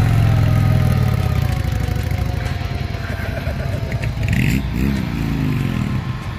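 Cruiser motorcycles pulling away one after another. The nearest engine is loudest in the first second or so, and another rises and falls in pitch about four and a half seconds in.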